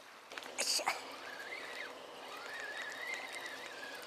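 Spinning reel being cranked to retrieve line on a fish, a thin, steady gear whine that wavers slightly with the cranking, after a brief rustle about half a second in.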